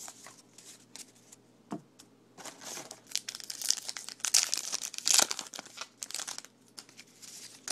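Trading-card pack wrapper being torn open and crinkled by hand: irregular crackling and tearing, busiest and loudest about four to five seconds in.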